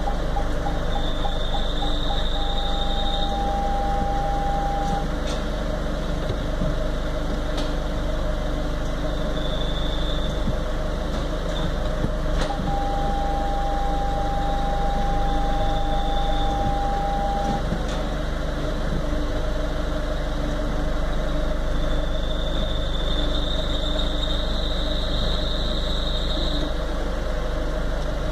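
Citroen C5 II 1.6 HDi four-cylinder turbodiesel idling steadily. A faint high-pitched whine comes and goes several times, and a steady mid-pitched tone sounds twice for a few seconds: this is the strange noise the owner is recording.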